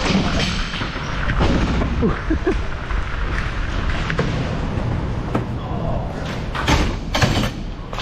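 Knocks and thuds as a hockey player comes through the bench door at the boards of a roller hockey rink and sits down on the bench. Several sharp knocks come in the second half, over a steady background of rink noise.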